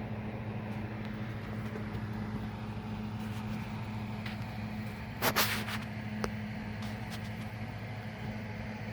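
Steady low mechanical hum, with a short loud rustle about five seconds in and a few faint clicks.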